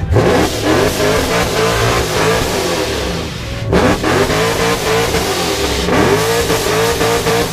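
A car engine being revved hard over and over while standing still. Each rev climbs sharply and holds high for a moment before falling back; the biggest revs come about four and six seconds in.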